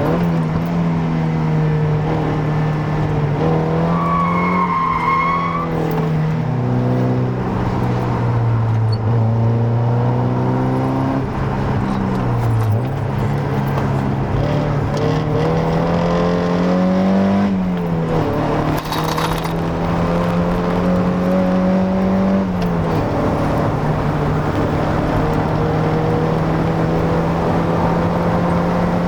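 Mazda MX-5 Miata NA's 1.6-litre four-cylinder engine, breathing through a K&N filter and a near-stock exhaust, under way on a drive. Its pitch drops sharply at a gear change, climbs slowly, drops again, then holds steady at a cruise. A brief high squeal comes a few seconds in.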